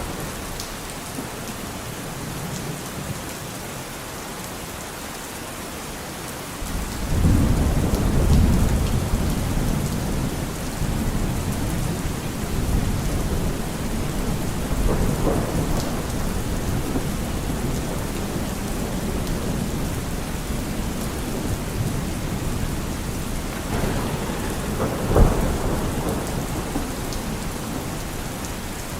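Steady heavy rain hissing, with a low rolling rumble of thunder that swells in suddenly about seven seconds in and keeps rumbling, with further louder peaks about halfway and near the end.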